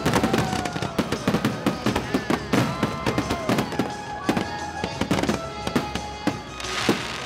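Aerial fireworks shells bursting in rapid succession, a dense run of bangs and crackles with no let-up, and a burst of crackling hiss near the end. Music plays underneath.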